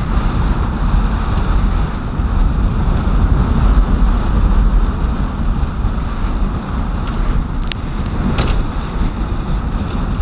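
Strong storm wind buffeting the microphone over the rush of rough waves against a small motorboat's hull as it runs through the chop, with two short sharp knocks about three-quarters of the way through.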